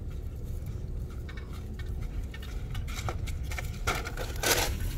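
Footsteps and rustling of dry grass and brush drawing closer, getting louder in the second half, with the loudest brush about four and a half seconds in, over a steady low rumble.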